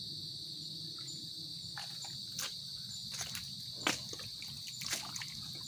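Steady high-pitched insect chorus, like crickets, running without a break, with a few sharp clicks and knocks scattered through it, the clearest about two and a half, four and five seconds in.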